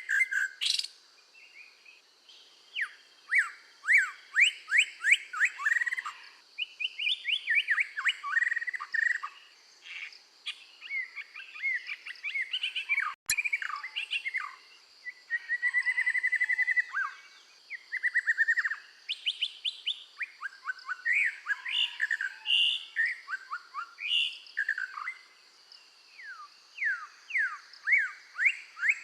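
Scarlet minivet singing: long runs of sharp, quickly falling whistled notes and chirps, with a short steady trill about sixteen seconds in.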